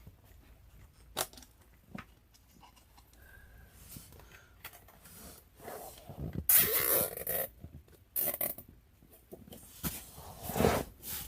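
Hands working the curtain's fastenings at the seat frame: scattered light clicks and scrapes, with a loud rasp lasting about a second near the middle and shorter rasps about eight and ten and a half seconds in.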